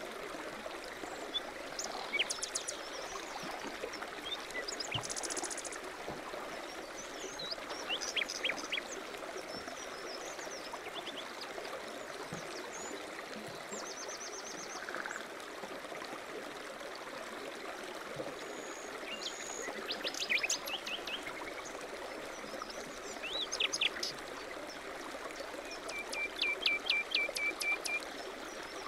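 A stream running steadily, with small songbirds chirping and trilling over it in scattered phrases, ending in a run of about eight quick repeated notes.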